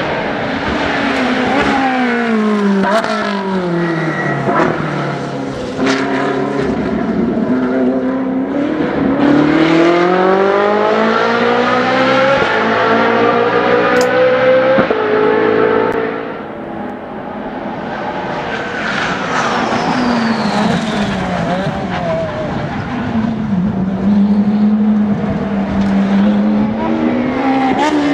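Ferrari 458 Challenge V8 race car engine on track, its pitch falling in steps through downshifts, then climbing steeply under full-throttle acceleration. About halfway through it fades briefly, and another Ferrari V8 race engine rises, holds a steady note for a few seconds, then climbs again.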